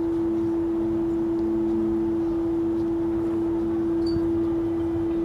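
A loud, steady hum at one unchanging pitch, with faint background noise beneath it.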